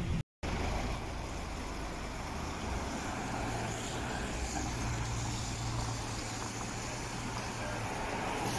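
City street traffic: cars moving slowly past close by, with steady road noise and a low engine hum that holds from about three seconds in until near the end. A brief dropout near the start.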